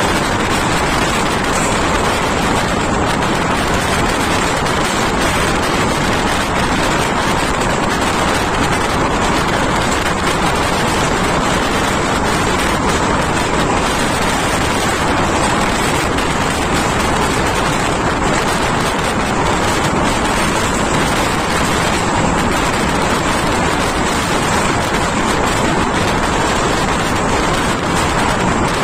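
Steady, loud rushing running noise of a moving train, recorded from on board, with no breaks or distinct events.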